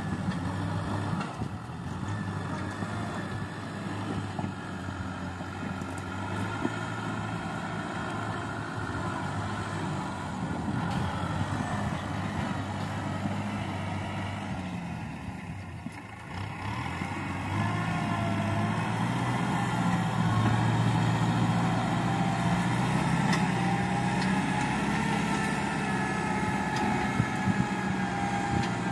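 Kubota M6040 tractor's diesel engine running steadily as it pushes soil with its front blade. It drops quieter around the middle, then picks up and runs louder again.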